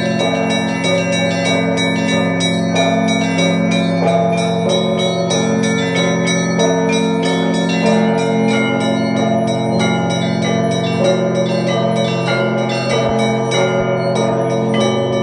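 Russian Orthodox church bells rung together: smaller bells struck in quick, busy patterns over the deep, sustained ringing of the larger bells.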